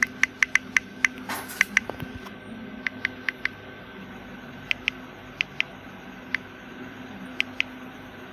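Smartphone on-screen keyboard tap clicks as text is typed: a quick run of about nine clicks in the first two seconds, then short groups and single clicks, over a faint steady hum.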